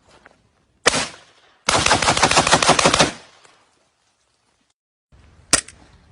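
Firearm shooting: a single shot, then a rapid burst of about fifteen shots lasting around a second and a half, like fully automatic fire. A lone shot follows near the end.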